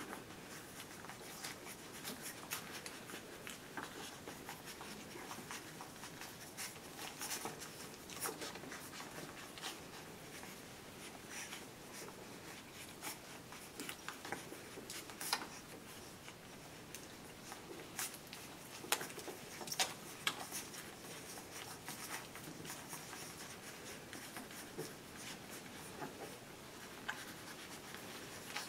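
Litter of 17-day-old whippet puppies suckling at their mother's teats: a faint, continuous stream of small irregular wet clicks and smacks, with a few louder clicks here and there.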